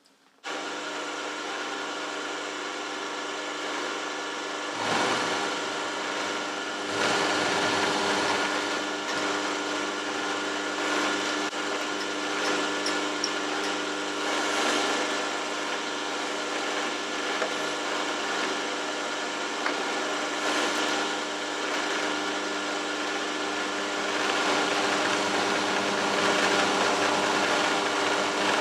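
Warco milling machine switched on, its motor running with a steady hum, then the cutter working on a mild-steel bolt with an uneven rasping noise over the top from about five seconds in.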